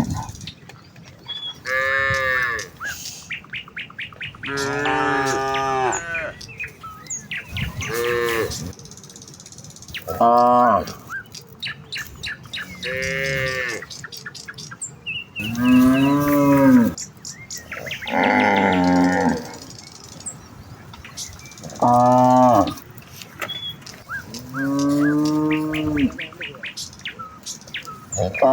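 Cattle mooing over and over, about nine separate calls of a second or so each, a few held longer, as the herd calls to one another.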